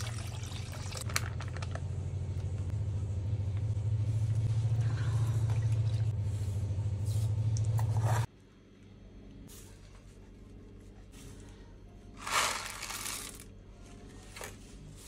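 Water pouring from a cup into a saucepan of milk, a steady pour that grows louder and stops abruptly about eight seconds in. After that, quieter kitchen handling with one brief loud rustle about twelve seconds in.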